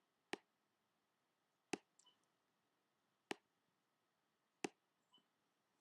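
Four sharp single clicks, about a second and a half apart, with a couple of fainter ticks between them: clicks of a computer mouse button working the app.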